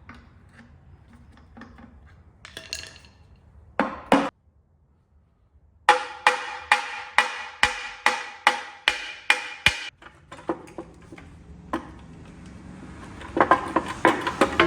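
Hammer blows on a stuck transmission bell housing to break it loose from the engine. A fast, steady run of ringing metallic strikes at about three to four a second, with a few single blows before it and a cluster more near the end.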